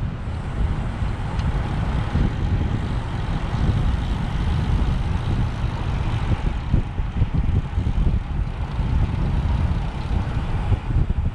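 Wind buffeting the microphone of a camera on a road bike moving at racing speed: a constant churning low rumble with a rushing hiss above it.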